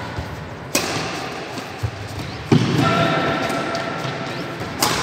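Badminton rackets striking a shuttlecock: two sharp cracks, about a second in and near the end, each echoing in a large hall. A heavier thud comes about halfway through.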